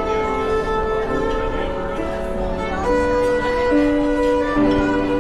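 Live violin playing a melody in long held notes, accompanied by grand piano.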